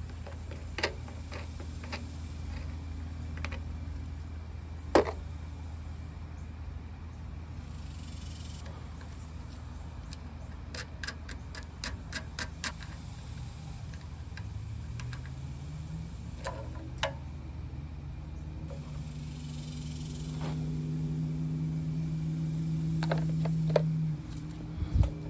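Scattered metallic clicks and knocks of hand tools and parts being handled, with a quick run of clicks about eleven to thirteen seconds in. Under them runs a steady low mechanical hum that rises in pitch about two-thirds through and holds there until near the end.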